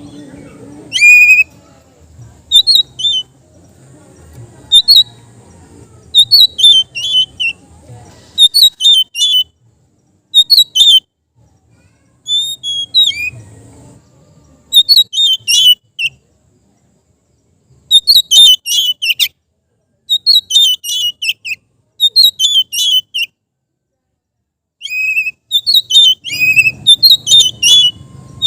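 Oriental magpie-robin singing loud, clear whistled phrases in short bursts about once a second, with a couple of pauses of a second or two. A faint low hum sits underneath during the first part.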